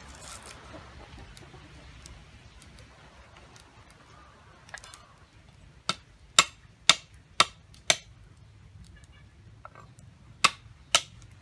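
Cleaver chopping on a round wooden cutting board: five sharp knocks about half a second apart in the middle, then two more near the end.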